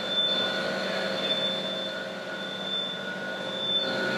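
Steady machine drone with several constant whining tones layered over it, unchanging throughout, like running machinery.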